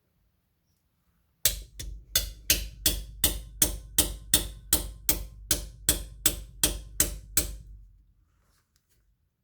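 About seventeen hammer blows, roughly three a second, driving a socket extension into bread packed behind a car's spigot bearing. Each strike rings sharply on the steel. This is the bread-packing trick, meant to force the bearing out of the crankshaft end without a puller.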